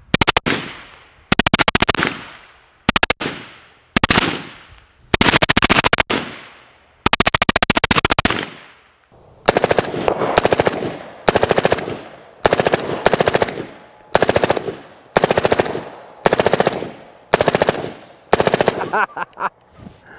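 Suppressed full-auto fire from an AR-type carbine fitted with a Rugged Razor 7.62 suppressor: about seventeen short bursts, each lasting a fraction of a second to about a second, with the report echoing away after each.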